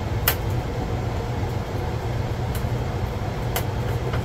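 Welder running with a steady low hum, broken by a few sharp clicks.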